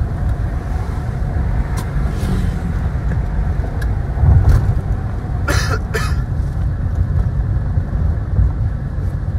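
Steady low road and engine noise of a car driving at speed, heard inside the cabin. About halfway through come two sharp clicks half a second apart.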